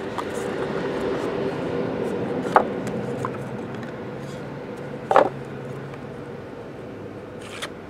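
Trading cards and the parts of a hard card box being handled: a few short sharp taps and knocks, the loudest about five seconds in, over a steady low hum.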